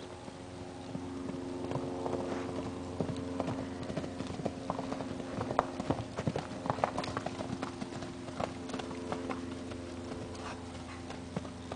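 Hoofbeats of two horses cantering and galloping loose on a soft dirt arena: irregular thuds and clatters that come thickest around the middle.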